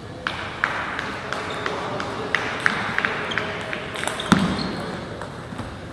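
Table tennis rally: the celluloid ball clicks back and forth off the bats and table at about three hits a second, with one heavier thump about four seconds in.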